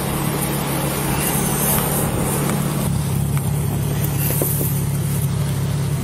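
Steady low hum of an idling car engine, with even outdoor roadside noise over it.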